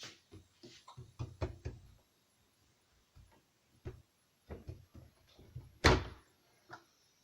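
Scattered plastic clicks and knocks from handling a Tassimo coffee machine, with one louder clunk about six seconds in.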